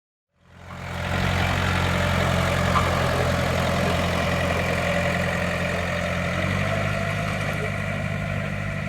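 A steady engine running, fading in within the first second, with a slight change in its tone about six and a half seconds in.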